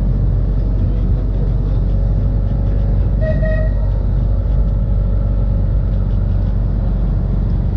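Blackpool open-top electric tram running along its track, a steady low rumble heard from the open top deck. A short high tone sounds briefly about three seconds in.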